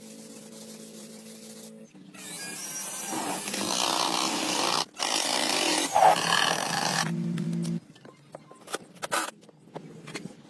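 A power tool running loudly for about six seconds, starting about two seconds in, after a steady low hum; scattered clicks and knocks follow once it stops.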